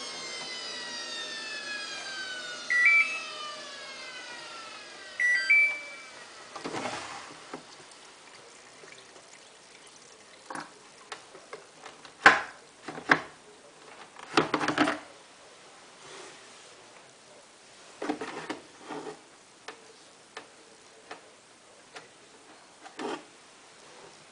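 Samsung WF8804RPA washing machine's spin winding down: the motor's whine falls steadily in pitch over the first six seconds as the drum slows, cut short because the machine won't fill and spin at the same time. Two short rising electronic beeps sound about three and five and a half seconds in, followed by scattered clicks and knocks.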